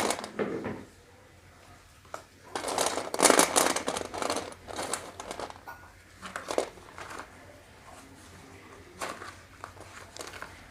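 Packaging of a packet of slate pencils crinkling as it is handled. There is a long stretch of rustling about two and a half seconds in, then a few short rustles later.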